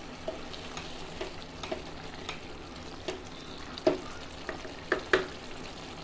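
Hariyali (green) chicken curry simmering and sizzling in a pan as a wooden spatula stirs it: a steady sizzle broken by irregular sharp pops, the loudest a little before four seconds and twice around five seconds in.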